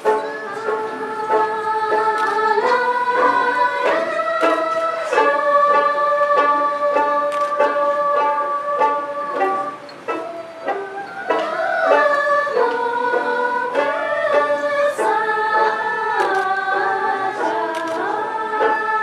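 A group of men and women singing a Dolpo Syabdo dance song in unison, with long held notes stepping up and down, over steady rhythmic strumming of a plucked long-necked lute. The singing breaks off briefly about halfway and then resumes.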